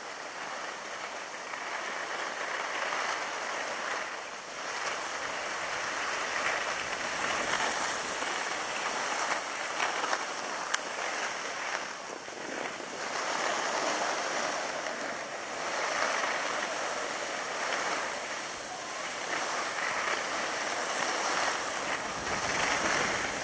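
Skis sliding and scraping over snow, with wind rushing over the microphone: a steady hiss that swells and eases every two to three seconds.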